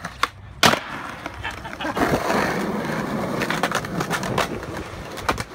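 Skateboard on concrete: a sharp clack and then a loud crack of the board and trucks hitting the ledge in the first second. After that comes the rough rolling and scraping of the wheels and trucks on concrete, with a few more clacks.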